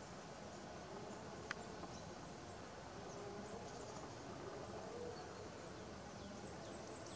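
Faint open-air ambience with scattered short, high chirps and a single sharp click about a second and a half in.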